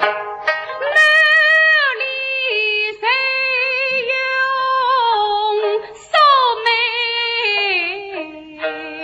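Suzhou tanci singing: a high voice draws out long held notes with vibrato and sliding pitch, accompanied by plucked strings, whose quick notes are heard at the start and again near the end.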